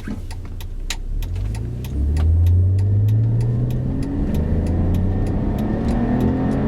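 2006 BMW 330ci ZHP's 3.0-litre straight-six accelerating under load. About two seconds in it gets louder and its note climbs steadily, then holds.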